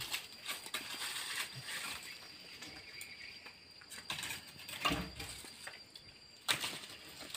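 Lumps of mangrove charcoal clinking and knocking together as they are scraped and sorted with a blade: scattered light clicks, with louder knocks about five seconds in and again a second and a half later.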